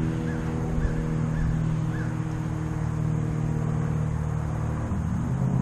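Biplane's propeller engine droning overhead during aerobatics, with its pitch shifting near the end. Short bird chirps come in over it in the first couple of seconds.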